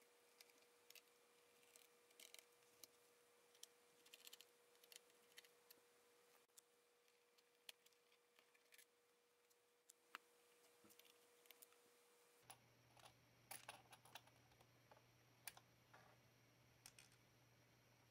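Near silence with faint, scattered small clicks and handling taps, irregular throughout.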